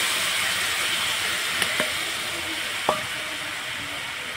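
Soaked jaggery water sizzling as it is strained into a hot, empty wok, the hiss slowly fading, with a few light clicks from the metal strainer and spoon.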